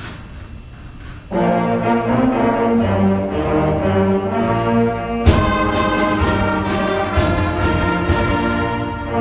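Middle-school concert band playing a Christmas medley, brass to the fore, coming in loud after about a second of quiet. A sharp hit comes about five seconds in, then a run of short, evenly spaced strokes under the sustained chords.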